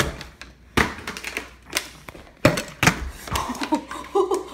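Plastic water bottle being flipped and knocking down onto a hard floor: a series of sharp knocks and clatters, the loudest at the very start and about two and a half seconds in.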